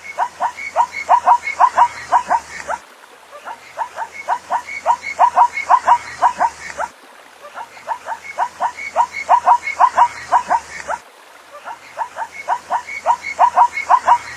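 Zebra calling: runs of about a dozen short, quick calls, each run lasting about three seconds and repeating about every four seconds.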